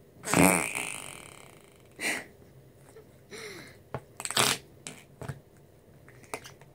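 Glitter slime pressed into a small pot with the fingers, letting out squelching, fart-like sounds several times. The loudest comes about half a second in and fades away, with shorter squelches and small clicks after it.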